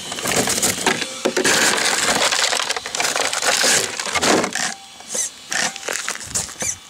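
Twigs, dry grass and grit crackling and scraping as they are cleared from an RC truck's jammed front steering. The crackling is dense for about four seconds, then gives way to a few short bursts near the end.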